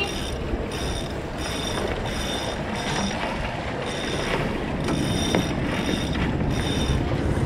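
Sheet winch on an Impulse 26 sailboat being cranked, its ratchet pawls whirring in short repeated bursts, about one and a half a second, over steady wind and water noise.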